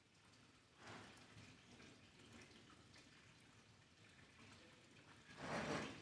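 Near silence: faint room tone, with a brief soft noise near the end.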